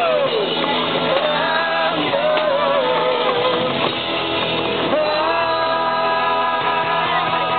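Live band playing amplified music: a singer over guitars, with a long held note starting about five seconds in.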